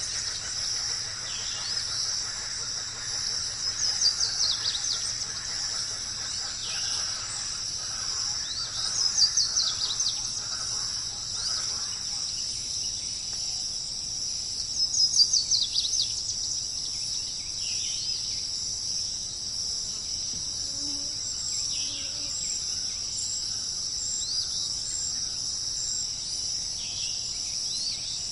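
A wild bird singing short phrases of quick notes that fall in pitch, repeated every few seconds, over a steady high-pitched insect chorus of crickets.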